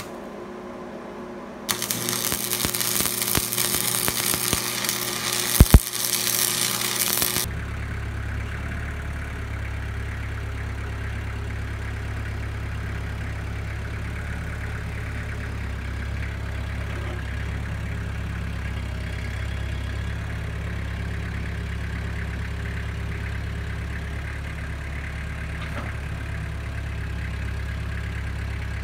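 Arc welding on steel angle iron: a loud, steady crackling hiss lasting about six seconds, with one sharp click near its end. The sound then changes abruptly to a Kubota M6800 tractor's diesel engine running steadily at a low drone.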